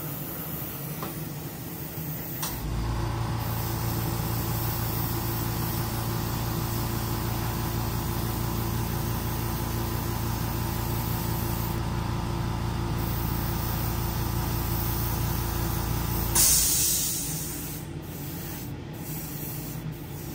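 A small airbrush air compressor starts a steady hum about two and a half seconds in while the airbrush sprays thin coats of paint. About sixteen seconds in it shuts off with a short, loud hiss of released air. A spray-booth exhaust fan runs underneath throughout.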